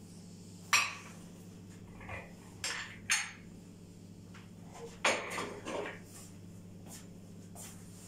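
Kitchenware being handled: a few sharp clinks and knocks of containers and utensils set down and moved, loudest about a second in, around three seconds in, and in a short cluster about five seconds in.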